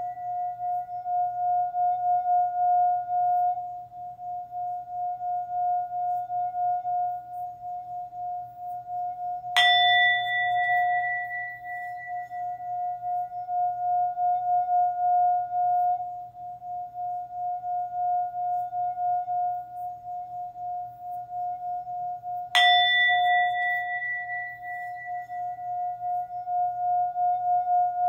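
Singing bowl holding one steady, gently pulsing tone over a faint low hum. It is struck twice, about a third of the way in and again about two-thirds in, and each strike adds a bright ring that fades over a few seconds.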